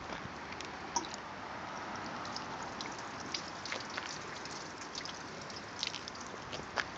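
Water sheeting off a freshly waxed car panel: a steady wash of running water with a few sharp drips and splashes, the clearest a little before the end.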